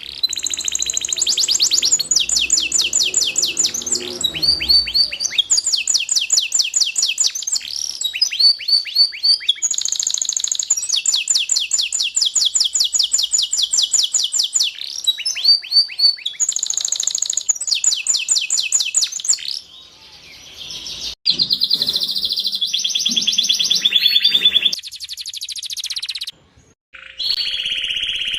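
Domestic canary singing a long song of rapid trills. Each trill is a fast run of the same note repeated, and the bird switches to a new trill every second or two, with brief breaks about two-thirds of the way through and near the end.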